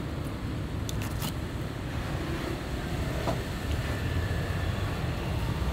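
Steady low outdoor background rumble, with a few faint short clicks about a second in.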